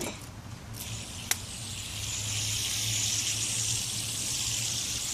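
A fidget spinner whirring steadily as it spins on its bearing, a thin hiss, with a single sharp click about a second in.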